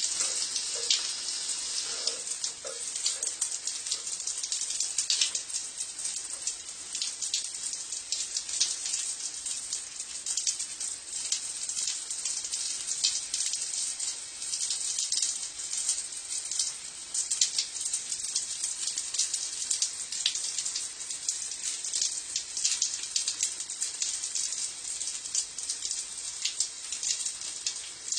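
Shower water spraying and splashing onto a stone floor: a steady hiss with dense spattering drops.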